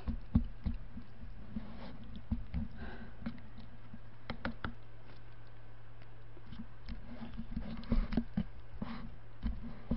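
Chopsticks stirring instant jjajang noodles in a paper cup, with scattered small clicks, taps and rustles, under a steady low hum.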